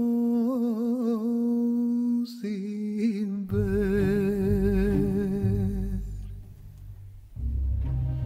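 Background song: a solo voice draws out long, wavering notes without words. About three and a half seconds in, a deep bass accompaniment joins; the voice fades out, and near the end instrumental music takes over.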